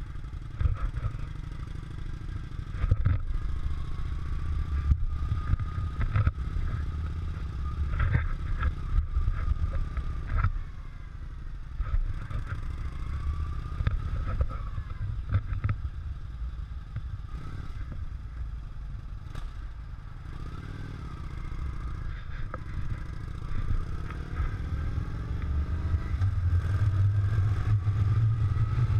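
Motorcycle engine running with wind rumbling on the microphone as the bike rides along, with scattered clicks and rattles. The sound grows louder near the end as the bike gets up to speed on the open road.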